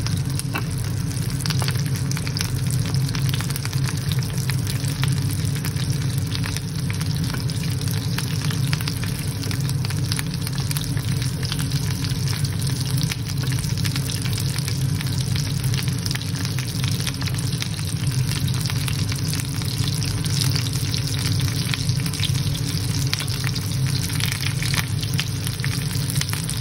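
Butter sizzling steadily in a cast-iron grill pan with garlic cloves and a rosemary sprig, full of fine crackles, over a steady low hum.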